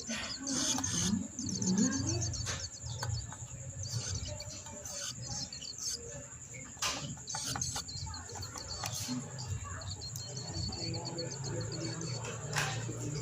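Young zitting cisticola (cici padi) chirping in short runs of rapid, high chips, about a second in and again around ten seconds in, the begging calls of a fledgling being hand-fed. Sharp clicks are scattered between the runs.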